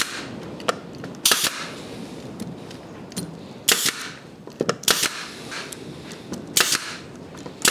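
Pneumatic brad nailer firing brads to tack a glued wooden fence onto a plywood sled base. There are about six sharp shots, roughly one every second or so.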